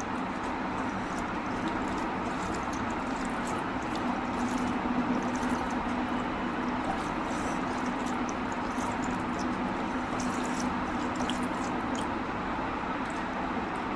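Wet eating sounds of mutton curry and rice: frequent small squelching and smacking clicks, over a steady background hiss and low hum.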